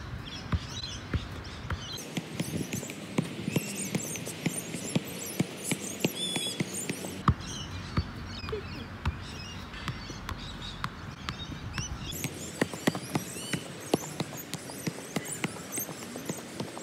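A soccer ball being juggled on the feet and knees: a quick, irregular run of dull thumps as it is kicked up again and again.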